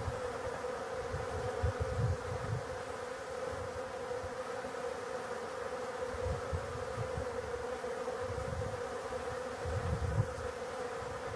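Many honey bees buzzing as they fly around a waterer, a steady drone. Short low rumbles of wind on the microphone come and go.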